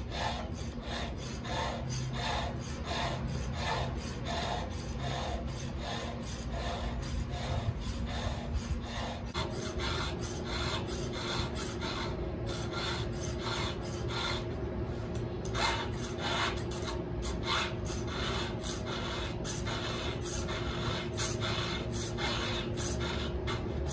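Hand file rasping across the steel cutters of a chainsaw chain on a long milling bar, in short regular strokes about two a second, later less evenly: a dull chain being sharpened by hand.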